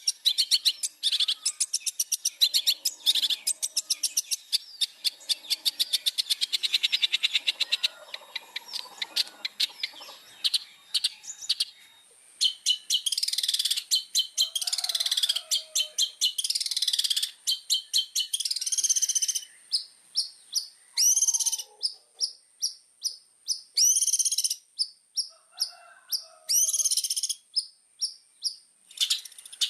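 Long-tailed shrike (cendet) singing vigorously. Fast runs of sharp, evenly repeated notes give way about halfway through to louder scratchy warbled phrases, with quick repeated notes between them.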